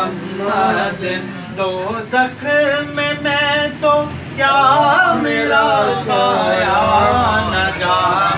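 Unaccompanied male singing of a naat, Islamic devotional poetry in praise of the Prophet Muhammad. The phrases break briefly a couple of times and then turn into long wavering held notes in the second half.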